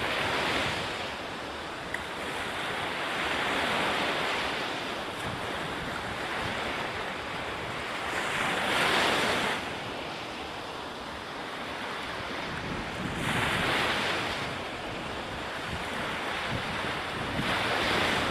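Ocean surf: waves breaking and washing in, swelling louder every few seconds.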